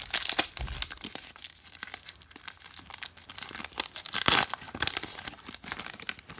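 A baseball card pack's foil wrapper being torn open and crinkled by hand, a run of crackling rips with a louder burst about four seconds in.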